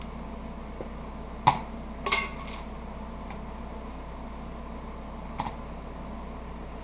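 A small round metal tin being opened and its lid set down: sharp metallic clicks, one loud one about a second and a half in, a short clatter half a second later and a lighter click near the end, over a steady low hum.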